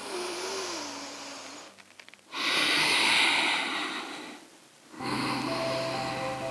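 A woman's slow, deep yoga breathing picked up close on a clip-on microphone: three long breaths, the loudest a strong exhale in the middle. Soft, steady music tones come in about five seconds in.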